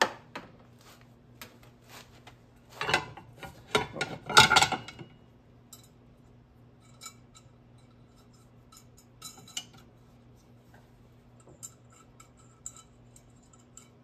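Steel mounting bracket clanking against a brazed flat plate heat exchanger as it is fitted and its bolts are threaded in by hand: a cluster of loud metal clanks about three to five seconds in, then scattered light clinks and ticks. A low steady hum runs underneath.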